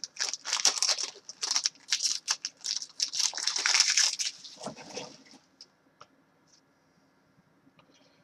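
A trading card pack wrapper being torn open and crinkled by hand. There is dense crackling rustle for about the first five seconds, then it stops.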